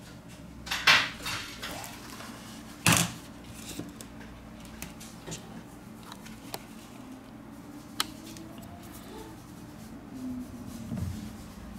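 Small handling noises of a handheld device being taken apart: a brief rustle about a second in, a sharp knock just before three seconds as the screen assembly or a tool meets the work surface, and a few faint light clicks later from a plastic prying tool, over a low steady hum.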